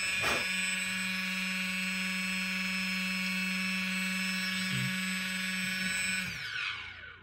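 Homemade cordless mini drill's brushless DC motor spinning with a steady high whine, then switched off about six seconds in and falling in pitch as it winds down to a stop.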